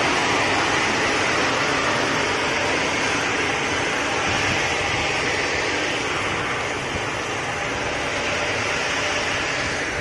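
Steady rushing hiss of an automatic railway coach washing plant: water sprays and rotating brushes working on the coaches of a passenger train rolling slowly through.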